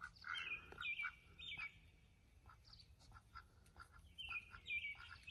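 Outdoor birdsong: a songbird repeating clear, downslurred whistles in two runs of about three notes, one early and one near the end, with softer shorter bird calls underneath.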